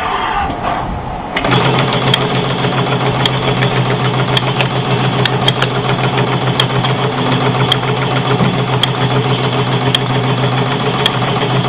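CNC brush-tufting machine running at high speed, its tufting head punching tufts into a cylindrical brush body with a rapid, even clatter over a steady motor hum, with occasional sharp ticks. It comes in loud about a second and a half in.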